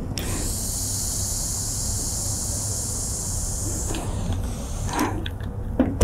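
Steam iron hissing steadily as it puffs steam, cutting off about four seconds in; a few light clicks and knocks follow near the end.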